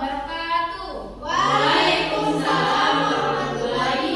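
A group of children singing together, becoming louder and fuller about a second in.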